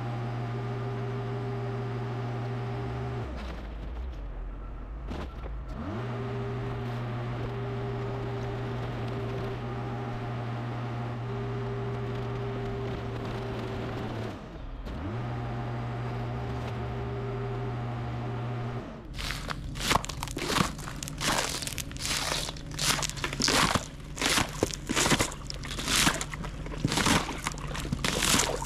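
Forklift engine running at a steady high speed, dropping back twice and revving up again. In the last ten seconds the engine runs lower under loud, irregular crunching and crackling.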